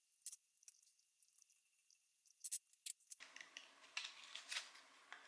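Faint, scattered clicks and light metal scrapes of hand tools working the screws and bottom cover plate of a septic aerator air pump.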